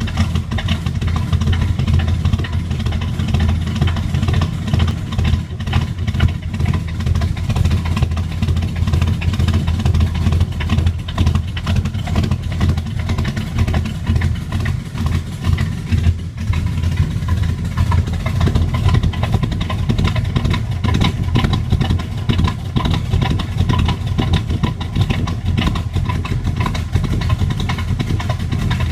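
327 small-block Chevy V8 idling with a rough, uneven lope from its aftermarket Comp Cams camshaft.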